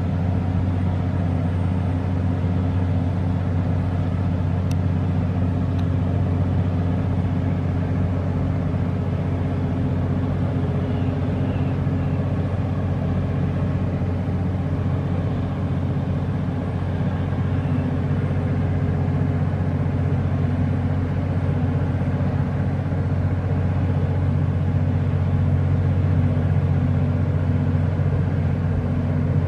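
Boat engine running with a steady low drone that holds level throughout.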